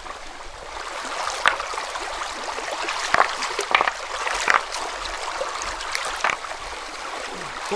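Shallow river water flowing steadily over stones, with several sharp clacks as river stones are set against one another to build a low stone wall in the water.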